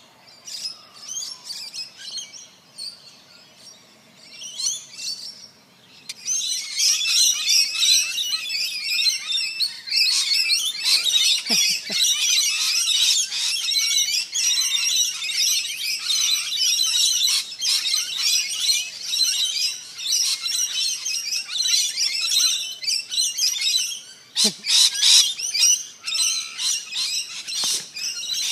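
A flock of parrots in a tree, many birds chattering and screeching at once. Faint and sparse at first, then from about six seconds in a dense, loud, unbroken chorus.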